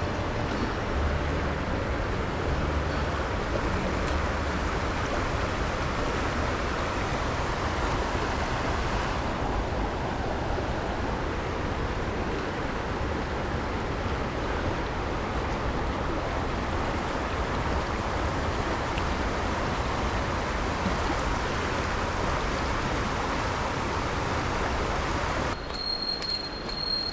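Mountain stream water rushing steadily over rocks. It drops away abruptly near the end, leaving a quieter sound with a faint high tone.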